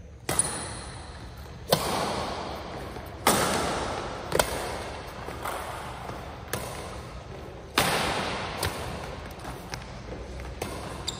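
Badminton rackets striking the shuttlecock in a singles rally: a string of sharp cracks a second or two apart, each with a ringing hall echo after it, with fainter knocks and footfalls between them.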